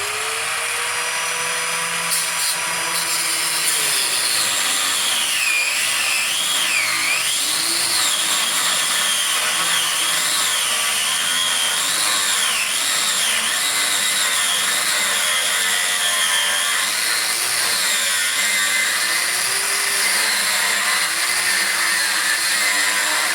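Abrasive cutoff wheel cutting through a steel van frame rail in one continuous run of over twenty seconds. It makes a loud whine whose pitch keeps dipping and recovering as the wheel bogs down, which happens because cutting from the underside lets the cut pinch the blade.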